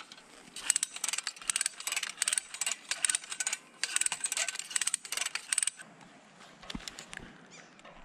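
Rapid metallic clinking and rattling of climbing carabiners and rigging hardware being handled, in dense flurries that stop about six seconds in, followed by a few scattered knocks.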